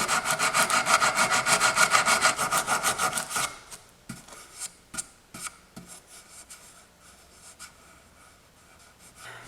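Coping saw cutting through a small wooden board in fast, even strokes, about eight a second, stopping about three and a half seconds in. Scattered light clicks and knocks follow.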